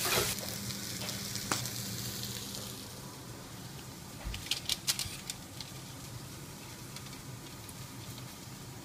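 Chicken strips sizzling as they fry in a pan, the hiss fading after about three seconds. Then a quick cluster of sharp clicks, a metal spatula against a foil-lined baking tray, over a steady low hum.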